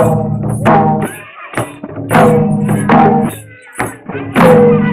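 Tharu Sakhiya dance music: a hand drum beats heavy, deep strokes while a metallic jingle keeps time about three times a second.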